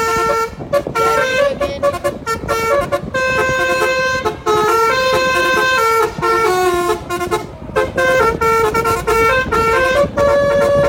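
Telolet multi-note musical horn on a car playing a tune: a fast run of loud horn notes stepping up and down in pitch, sometimes two notes sounding together, with a few short breaks.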